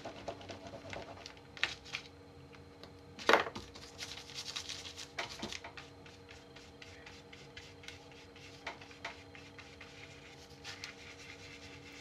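Water-soluble wax pastel (gelato) crayon rubbed and scratched across paper in short strokes, with one sharp knock about three seconds in. A faint steady hum sits under it.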